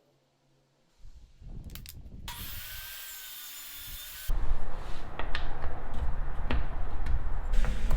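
A woodworking power tool, most likely a saw, cutting into a block of maple. Fainter handling noise comes first, then about four seconds in the tool starts loudly and keeps running under load, with sharp ticks through the cut.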